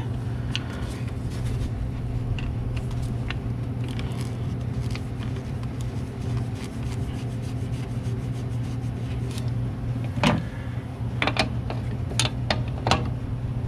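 Small clicks and scrapes of steel brake lines and fittings being handled at a master cylinder, over a steady low hum. Near the end, a few sharp metallic clicks as a wrench goes onto the brake line nut at the brass adapter fitting.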